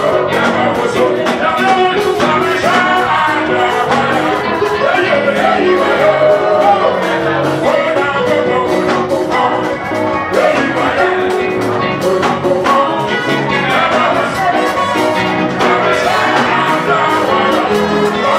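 Loud live Pentecostal praise music: electric keyboard and singing over a steady beat, playing without a break.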